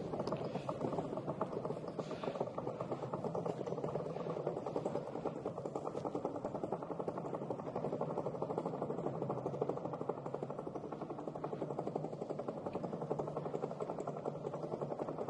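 A steady mechanical rumbling drone with a fine, fast rattle in it, holding at one level without a break.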